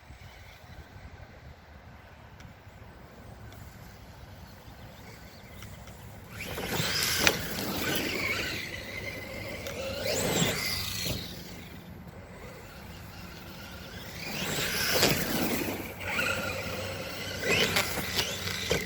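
Redcat Shredder RC monster truck's electric motor whining up and down in about four bursts of throttle, its tyres tearing over dirt, with a sharp knock about seven seconds in.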